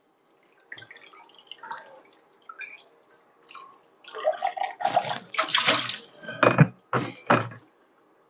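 Dishes being washed by hand in a sink: faint clinks of crockery at first, then water splashing and sloshing from about four seconds in, with a few sharp knocks near the end.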